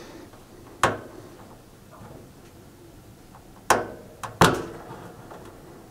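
A few sharp clicks from a small microwave turntable motor and its push-on spade connectors being handled in the fingers: one about a second in, then three close together around four seconds in.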